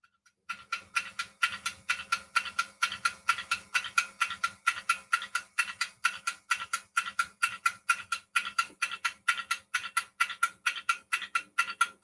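Countdown timer sound effect: a clock ticking briskly and evenly, about four ticks a second, as a 15-second answer time runs down.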